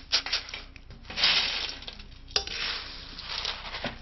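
Dry-roasted peanuts rattling and rushing in a wire mesh strainer as the hot salt is sifted out of them, then tipped into a glass bowl. There are a few light clicks, then two stretches of dry rustling, the second beginning with a sharp knock.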